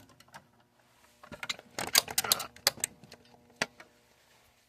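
Fire alarm pull station being handled: irregular clusters of quick plastic clicks and rattles, then one sharper click a little over three and a half seconds in.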